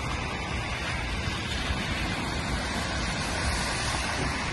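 Steady wind buffeting the microphone over the hiss of traffic on a wet, flooded road.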